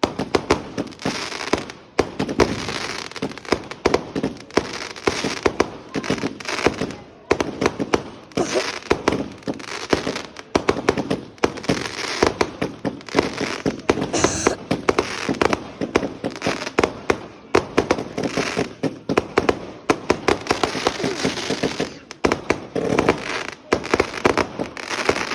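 Fireworks going off in a rapid, continuous volley of bangs and crackles, several a second, with a few brief lulls.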